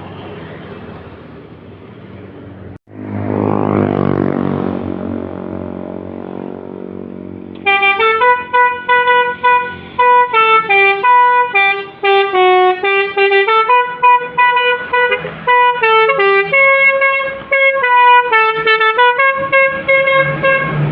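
A tour bus's Basuri telolet multi-tone air horn playing a fast tune of short, loud notes, from about eight seconds in to the end. Before it, a bus engine runs loudly as the bus passes.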